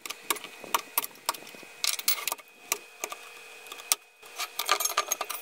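Utility knife cutting through thin 1 mm tabs of soft aluminium alloy to free CNC-milled parts from the sheet: a run of irregular sharp clicks and scrapes of blade on metal, busier near the end.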